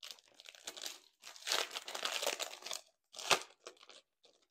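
Clear plastic sleeve crinkling as sticker sheets are handled and pulled out of it, in irregular crackles with one sharper, louder crackle a little after three seconds in.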